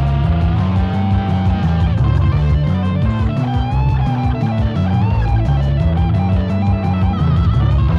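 Electric guitar solo with bent notes, played over a rock'n'roll backing track of bass and drums.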